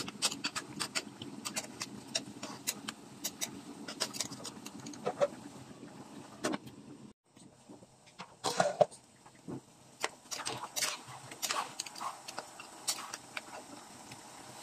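Chicken adobo simmering in a pot, the sauce bubbling with irregular pops and crackles, and a metal spoon stirring through the chicken at the start.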